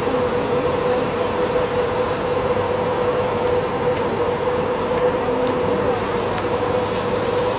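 Steady mechanical drone with one constant hum running through it and no change in level.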